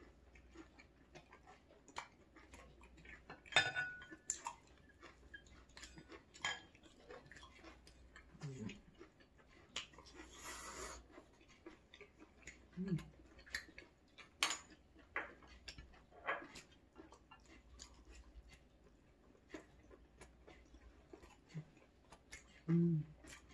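Close-up eating sounds: chewing, with frequent light clicks of utensils against dishes and a brief noisy burst about ten seconds in.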